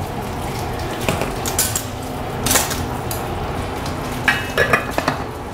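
A metal spoon clinking against a stainless steel sauté pan as olives are spooned into it, a few separate clinks, then a quick cluster of metallic clinks near the end. Under them runs the steady low hiss of chicken broth simmering in the pan.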